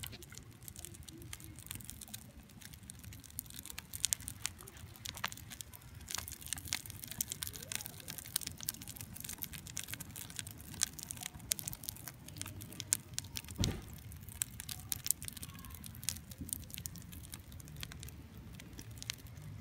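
Wood fire of logs and birch bark crackling in a steel fire bowl: an irregular run of small sharp pops and snaps over a faint, steady low noise.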